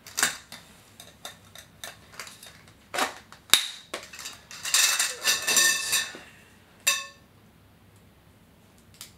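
Light tent frame tubes clinking and rattling together as they are handled, with a denser clattering run about halfway through and a single ringing clink a moment later.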